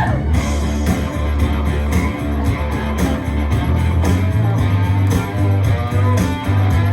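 Recorded dance music with guitar over a steady drum beat and bass.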